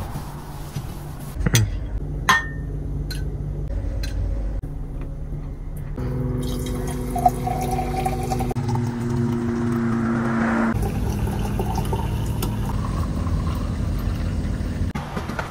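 Liquid being poured into a container, the sound rising in pitch as it fills and stopping suddenly, after a few sharp clinks, over a steady low hum.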